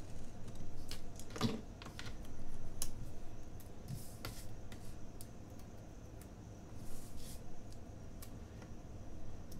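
Hands handling a paper planner page on a desk: scattered light clicks and taps, with a few brief rustles as the paper is slid and turned.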